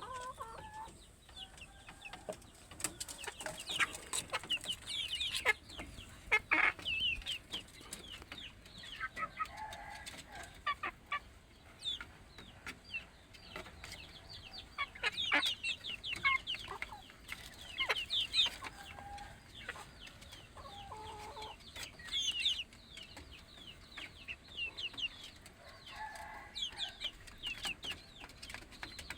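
Village chickens clucking, with chicks giving many short, high, falling peeps in bursts throughout.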